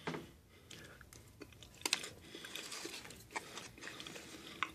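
Plastic fork scraping and tapping against a frozen-dinner tray: a run of light, irregular clicks and scrapes.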